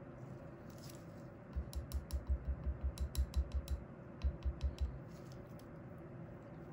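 Quick, light tapping, about six taps a second, then a short second run of about four: a wooden skewer holding a chocolate-dipped Oreo cheese ball knocked against the rim of a glass measuring cup to shake off the excess melted chocolate.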